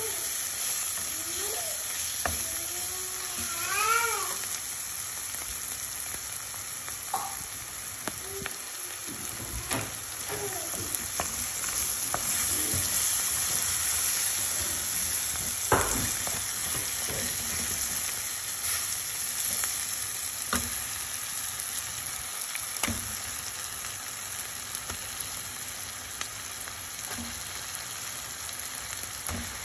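Onions, tomatoes and green chillies sizzling steadily in oil in a stainless steel pan as a wooden spatula stirs and scrapes, with scattered knocks of the spatula against the pan. A brief wavering, voice-like sound about four seconds in.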